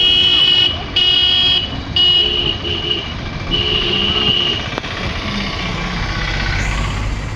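A vehicle horn honking in repeated blasts, about one a second through the first five seconds, over steady road traffic and engine noise.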